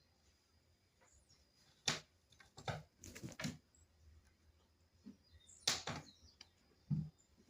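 A handful of sharp taps and knocks: one about two seconds in, a quick cluster around three seconds, then a few more near the end.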